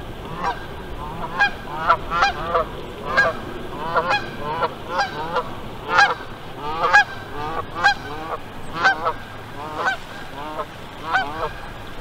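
Geese in flight honking repeatedly, about two honks a second, the calls sometimes overlapping as more than one bird calls.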